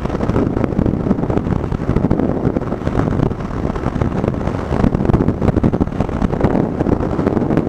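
Wind buffeting the microphone over the steady noise of a moving vehicle.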